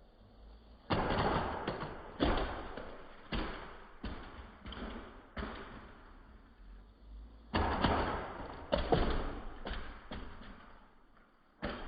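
A plastic Lego Technic off-road vehicle landing and bouncing, about a dozen sudden thuds at uneven spacing, each followed by a short fading clatter.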